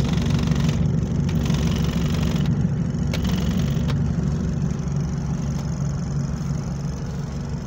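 Double-decker bus engine running with a steady low drone through a burst exhaust, heard inside the cabin. A few light rattling clicks come from a loose ceiling trim panel in the first few seconds.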